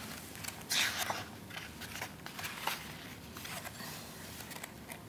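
Paper pages of a flapped paperback photobook being handled and turned. A brief rustle of a page comes about a second in, then light paper ticks and rustles.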